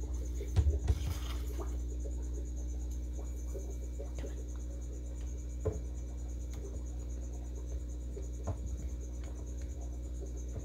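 A few knocks about half a second to a second in as metal tongs set a quail egg into a shallow feed dish on mulch, with a few fainter clicks later. Under it runs a steady low hum and a continuous high, evenly pulsing trill like a cricket.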